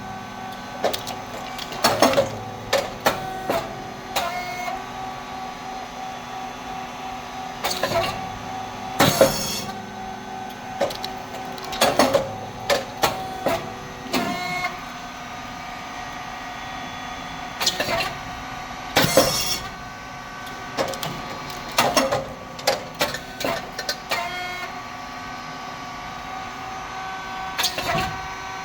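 SYP5804T rice cake popping machine running: a steady hum from its motor and hydraulic pump, broken about every ten seconds by loud, sharp pops and clatter as the heated moulds open and release each batch of four rice chips.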